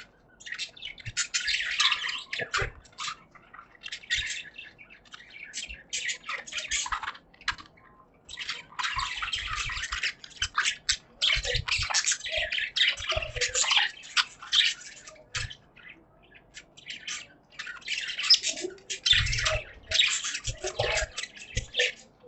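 Budgies chirping and chattering in a busy, irregular stream of short high calls and squawks.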